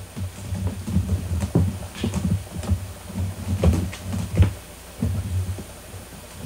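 A kitten scrambling and pawing at a wicker storage basket and plastic bin: an irregular run of soft thumps, knocks and scratches, the loudest about four and a half seconds in, dying down near the end.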